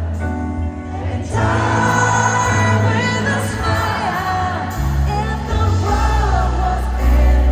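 Live pop concert music: a band with a heavy bass line and singing that comes in about a second and a half in.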